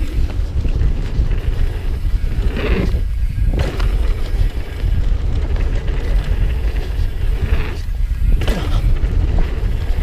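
Wind buffeting the camera microphone over the rumble of a downhill mountain bike's tyres rolling fast on a dirt trail, with a few brief louder rushes of tyre and trail noise.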